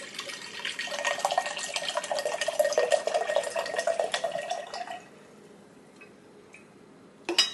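Sparkling water poured from a can into a large wine glass: a splashing, fizzing pour for about five seconds. Then fainter fizzing of the bubbles in the glass, and a single sharp click near the end.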